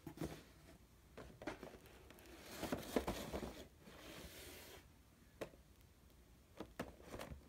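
Faint handling noises of a Funko Pop's windowed cardboard box being picked up and turned in the hand: a rustling, sliding stretch from about two to five seconds in, with several light taps and clicks before and after.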